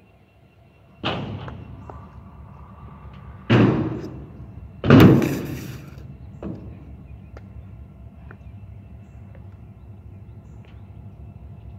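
Stunt scooter slamming on a skatepark quarter-pipe ramp in a crash: a hard impact about a second in and another at three and a half seconds. The loudest, clattering crash comes near five seconds as the rider goes down, followed by a softer knock.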